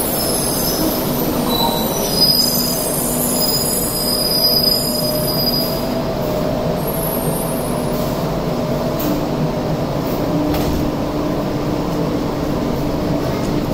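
Bombardier Innovia APM100 rubber-tyred people mover pulling into a station, with high-pitched squealing for the first six seconds or so as it passes and slows. It then settles into a steady hum as it stands at the platform.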